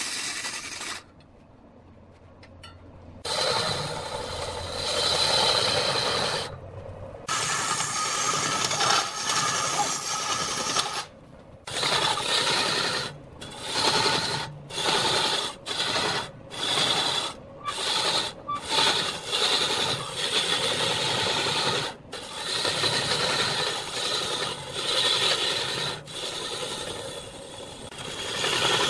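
A steel turning tool cutting into a large log spinning on a wood lathe, a rough hissing scrape that comes in repeated passes. It stops for a couple of seconds near the start, then breaks off briefly again and again in the middle as the tool is lifted and set back on the wood.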